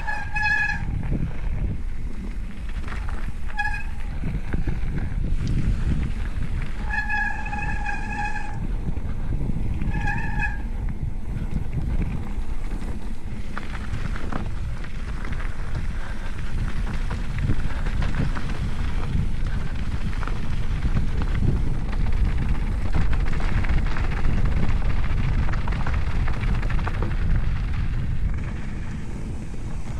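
Mountain bike riding downhill, with a steady rumble of tyres and wind on the microphone. In the first ten seconds or so there are four short, high-pitched squeals, all at the same pitch, typical of disc brakes squealing as the rider brakes.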